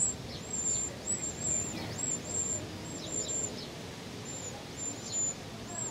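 Wren nestlings begging inside the nest: a steady string of short, very high cheeps, two or three a second, some sliding down in pitch.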